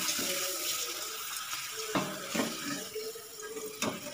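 Papad frying in hot oil in a pan, a steady sizzle that slowly dies down, with a few sharp knocks against the pan.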